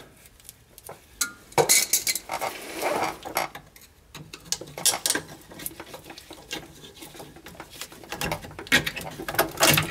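Screwdriver prying and scraping at the clevis pin retainer on an air brake slack adjuster: irregular metal-on-metal clinks and scrapes, in clusters about two seconds in and again near the end.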